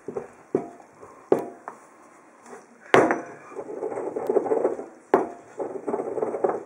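Pestle pounding and grinding amla, neem and shikakai powders in a stone mortar, breaking the powder finer. A few sharp knocks, the loudest about three and five seconds in, with stretches of gritty scraping between them.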